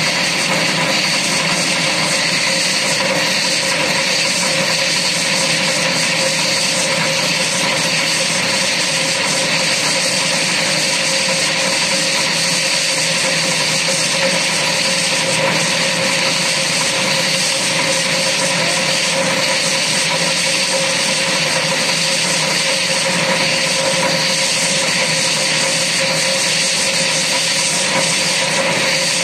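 Diamond wire saw running steadily, its motor and flywheel driving the wire through the quarry rock: a constant whine over a hiss that does not change.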